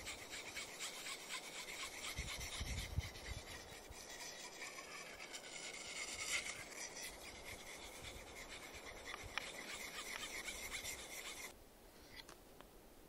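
Skrama bush knife's blade being honed on a handheld whetstone, many quick back-and-forth rasping strokes of steel on stone as the edge is sharpened. The scraping stops suddenly about eleven and a half seconds in, leaving only a few faint ticks.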